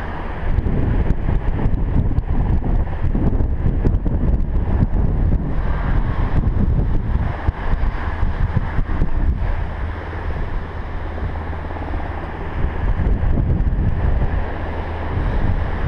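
Wind buffeting the microphone in a heavy, uneven rumble, with ocean surf washing beneath it.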